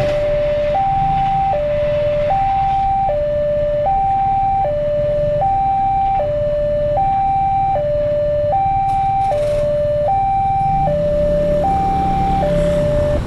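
Railway level crossing warning alarm sounding an even two-tone high-low pattern, each tone a little under a second, which stops shortly before the end as the crossing reopens. Motorcycle engines run underneath and grow louder near the end.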